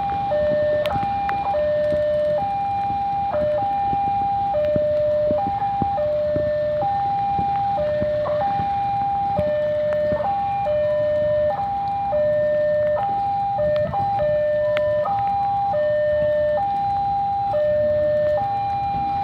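Railway level-crossing warning alarm sounding: an electronic signal alternating between a higher and a lower tone, which warns of an approaching train. A low steady rumble runs beneath it.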